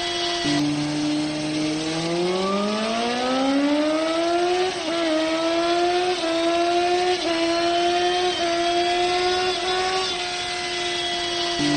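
Bajaj Pulsar 150 single-cylinder motorcycle engine running at high speed. Its note drops suddenly about half a second in, climbs steadily for about three seconds as the revs rise, then holds steady, with another drop and rise near the end.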